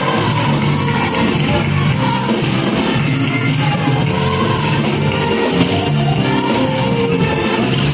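High school gospel choir singing praise music with band accompaniment and a tambourine jingling.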